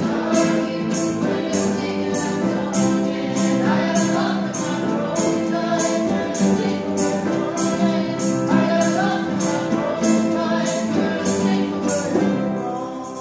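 A student ensemble playing and singing a pop song live: strummed acoustic guitars and ukuleles under a group of mixed voices, with a light percussive tick about twice a second. The song reaches its last chord, which fades away just before the end.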